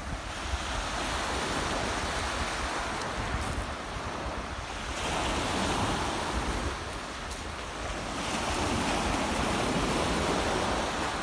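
Sea waves breaking and washing up a pebble shore, swelling and ebbing in surges every few seconds, with wind buffeting the microphone.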